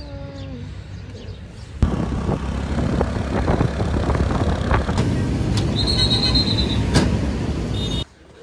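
Motorbike ride through a city street: a small engine running under heavy wind and road noise on the microphone, starting about two seconds in and cutting off shortly before the end. A brief high-pitched squeal sounds about six seconds in.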